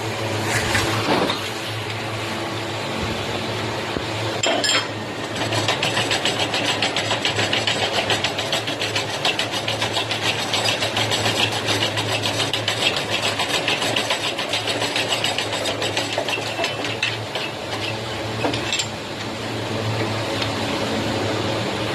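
Workshop machinery during a shock absorber repair: a steady low hum, with a rapid, even mechanical clattering from about five seconds in until near the end, and a few separate knocks.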